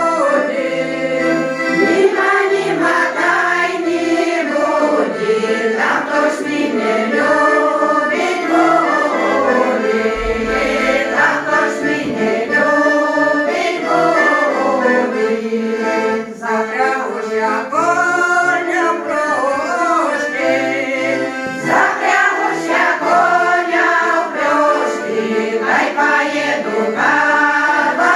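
Women's vocal ensemble singing a song together.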